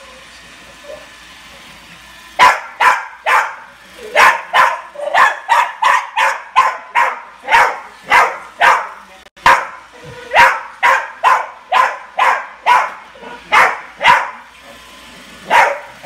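Small dog barking repeatedly at a robot vacuum, in a long run of sharp, high-pitched barks about two to three a second. The barking starts a couple of seconds in and pauses briefly around the middle.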